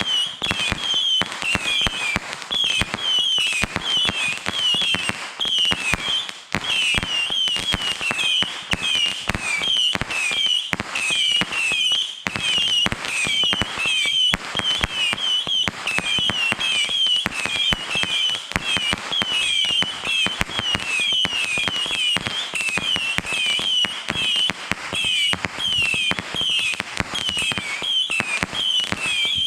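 A long string of firecrackers going off, a dense unbroken run of sharp pops many times a second, with short high falling chirps mixed in throughout.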